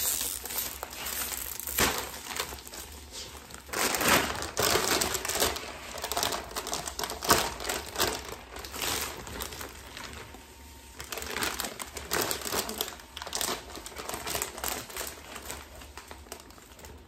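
Plastic candy bags and wrapped candies crinkling and rustling as handfuls of candy are taken out of opened bags, on and off in uneven spells.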